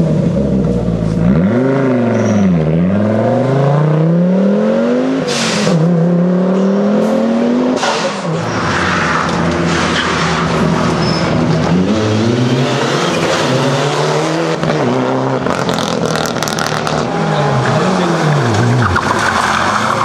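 Rally cars accelerating hard out of a tight hairpin one after another, engines revving up and dropping back repeatedly through gear changes, with tyre squeal and scrabbling. A sharp crack about five seconds in, and a change to a different car about eight seconds in.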